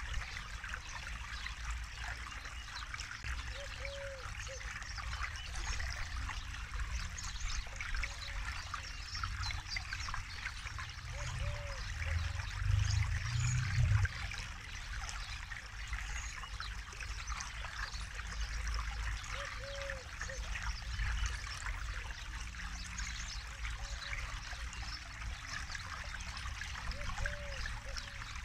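Forest river flowing: a steady trickling rush of water, with a low rumble that swells for a few seconds about halfway through.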